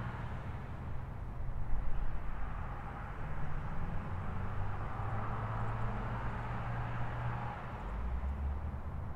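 Low, steady hum of city traffic, louder for a moment about two seconds in and again around the middle.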